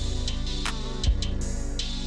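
Background music with drums over sustained instrument tones.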